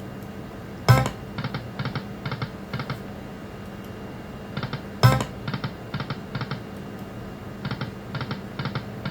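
Lightning Link video slot machine spinning: a sharp hit about a second in and again about five seconds in as spins start, each followed by a run of short clicking tones as the reels stop one by one, over the machine's steady hum.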